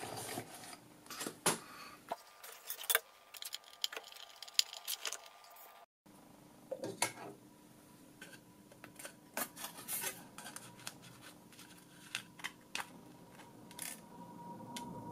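Scattered small metallic clicks, taps and scrapes as an aluminium cover plate is handled and lifted off a panel of screws.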